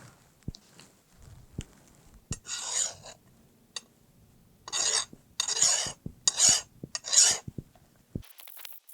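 Five short rasping strokes of about half a second each, the first on its own and the other four in quick succession, with light clicks and taps in between.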